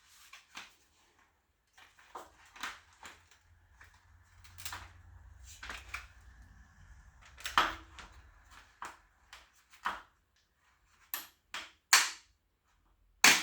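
Chrome trim strip on a Chrysler Pacifica roof rail being worked off its plastic clips: a string of sharp clicks and snaps, the loudest two near the end.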